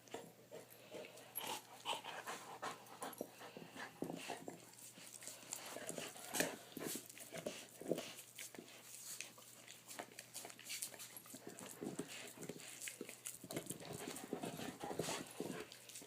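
A dog panting while it works at a chew ball, with irregular clicks and knocks throughout.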